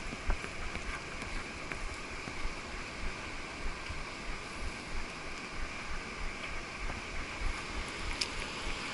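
Wind rushing over the microphone of a camera worn by a rider on horseback, over the steady wash of surf, with the horse's hooves on sand coming through as soft, irregular low thuds.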